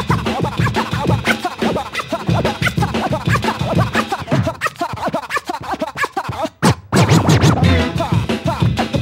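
Hip hop music with turntable scratching: short back-and-forth record scratches over a beat. The track drops out for a moment about two-thirds through, then comes back in with a heavy bass beat.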